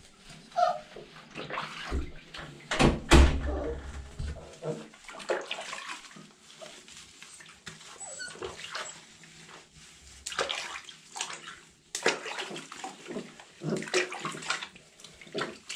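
Two mini Australian shepherd puppies being bathed in a bathtub: water sloshing and hands rubbing wet fur, with a brief puppy whine under a second in and a loud thump about three seconds in.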